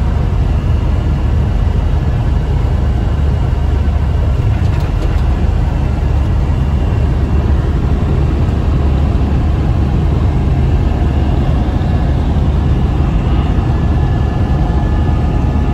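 Steady low drone of a Mack Titan semi truck's diesel engine, with road and wind noise, heard from inside the cab while cruising at highway speed.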